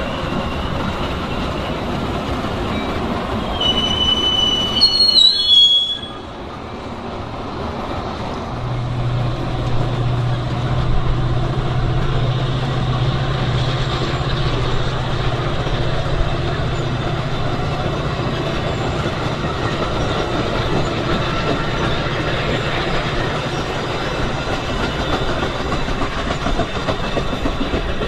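Metra bilevel commuter train rolling past with steady wheel-on-rail noise and a brief high wheel squeal about four to five seconds in. After an abrupt break near six seconds, a Metra diesel locomotive is heard pulling its train away, its engine a steady low drone over the rolling of the cars.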